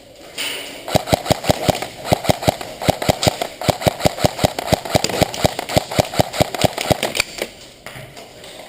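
Airsoft gun firing a long run of rapid, evenly spaced shots, about six or seven a second, with a short break near the start.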